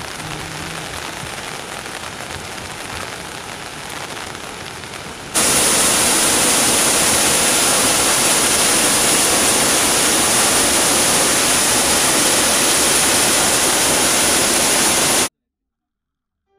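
Waterfall's steady rush of falling water, jumping sharply louder about five seconds in and cutting off abruptly about a second before the end.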